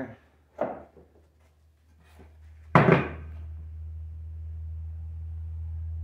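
Wooden boards knocking on a workbench during glue-up: a light knock, then about three seconds in a loud wooden thunk. A steady low hum starts right after the thunk and continues.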